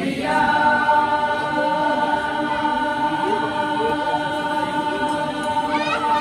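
Amateur mixed choir holding one long chord at the end of a song, the voices breaking off near the end.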